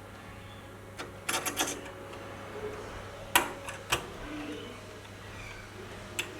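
Sharp clicks and light clatter of small hard parts being handled: a quick run of clicks about a second in, a loud click in the middle followed by two more, and a single click near the end.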